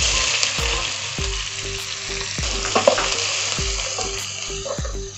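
Sliced onions dropped into hot spiced oil in a nonstick pot, sizzling loudly at once and slowly settling as they are stirred with a wooden spatula. A sharp knock about three seconds in.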